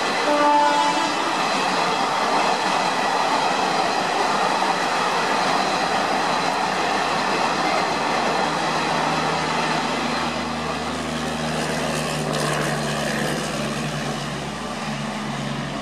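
Garib Rath Express passenger coaches rolling past on the rails: a steady rumble and rattle of wheels on track that slowly fades as the train draws away. A brief horn note sounds right at the start.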